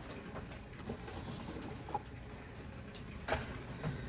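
Faint handling noises: a few light clicks and knocks over low, steady background noise, as a creamer bottle and a cup are handled.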